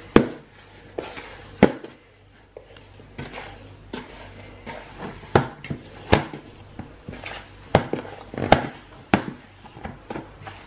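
Hand kneading a soft, oily rice-flour and sugar dough in a plastic bowl: irregular wet slaps and knocks against the bowl, about one a second.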